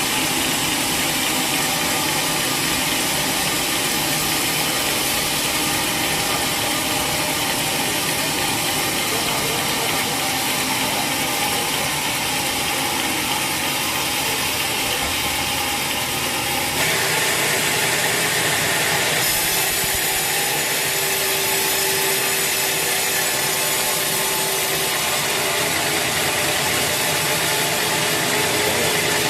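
Sawmill saw running and cutting through a teak log: a loud, steady grinding whine of blade in wood over the machine's motor. The sound changes abruptly about seventeen seconds in.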